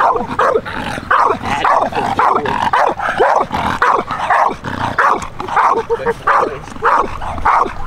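Pit bull-type dog barking rapidly and repeatedly while lunging on the leash at a decoy in a bite suit, about two to three barks a second. It is alert barking, the dog being worked up before it is sent in for the bite.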